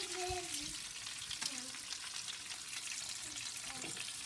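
Chicken cutlets frying in hot oil in a pan: a steady sizzle with frequent small crackles and pops.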